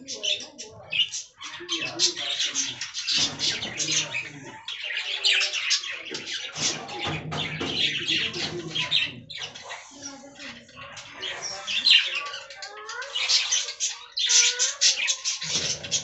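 A colony of budgerigars chattering and chirping, with many short, overlapping calls and squawks.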